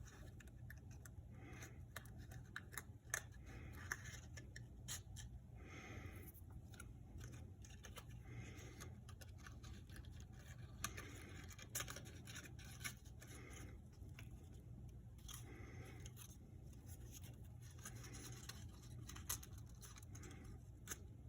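Faint handling of cardboard pieces being slid and pushed together at their slots: short rustling scrapes and scattered light clicks, over a low steady room hum.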